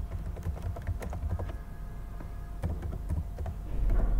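Typing on a computer keyboard: quick, irregular keystrokes entering an email address, pausing for about a second midway before carrying on.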